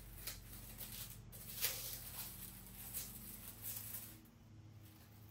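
Tissue-paper packaging rustling and crinkling in short bursts as a parcel is unwrapped, over a faint steady hum.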